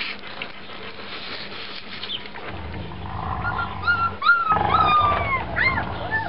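Three-week-old puppies giving a quick run of high squeaking whimpers, about nine short calls that each rise and fall in pitch, beginning about three seconds in. A low rumbling noise runs underneath them.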